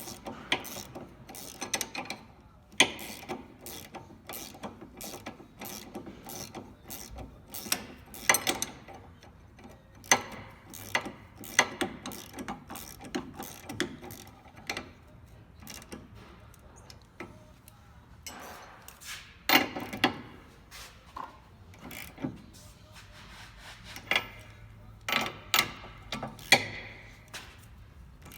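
Hand socket ratchet clicking in short runs while bolts are turned, with sharp metal clinks of tools scattered between.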